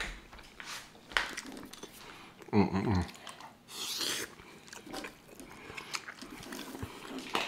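Close-miked chewing and biting of cheesy tacos de alambre, with small wet mouth clicks. A short hummed voice sound comes about two and a half seconds in, and a brief hissing squirt of crema from a squeeze pack about four seconds in.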